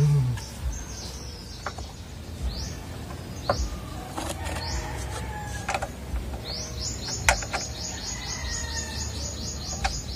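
Birds chirping with repeated high notes, then a fast, even run of notes from about six and a half seconds in. A few sharp clicks and taps come from hand-fitting bolts to a plastic bumper cover.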